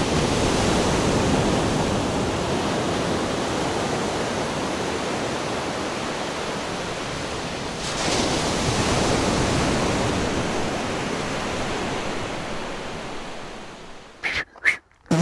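Ocean surf: waves breaking and churning, a steady rushing noise that swells again about eight seconds in and fades out near the end, where a man's voice starts.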